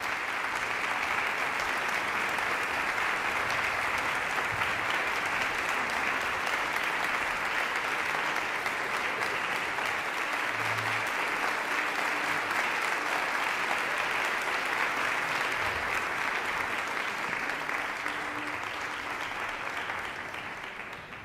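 Concert-hall audience applauding steadily, dying away near the end.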